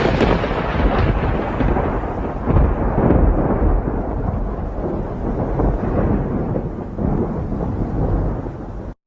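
Loud, continuous rumbling noise with crackle, cutting off suddenly near the end.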